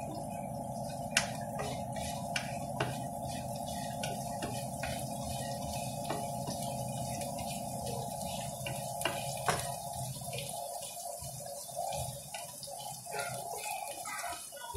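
Chopped garlic sizzling in hot oil in a nonstick pan, with a slotted spoon scraping and tapping against the pan now and then. A steady hum runs underneath and stops about ten seconds in.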